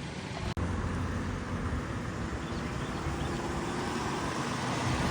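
A car's engine running steadily with road noise, with a brief dropout about half a second in.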